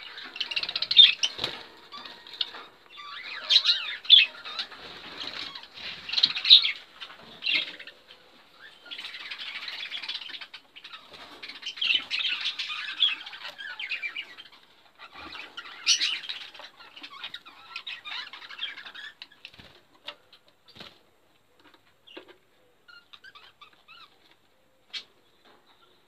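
Caged budgerigars chattering and chirping in dense, busy bursts, dying away about two-thirds of the way through to only scattered faint chirps and clicks.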